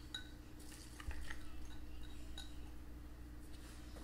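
Faint scattered clinks and light taps of ceramic bowls as grated cheddar cheese is tipped from a small bowl into a large mixing bowl.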